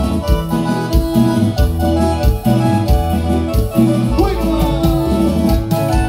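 Live band music: a chilena, with a harmonica melody over keyboard and a regular bass beat.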